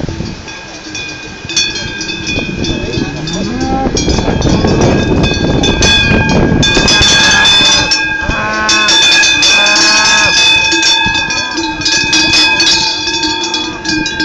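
Large cowbells hung on Hérens fighting cows clanging and ringing as the cows walk past. There are a few short rising calls, and a loud, noisy stretch in the middle.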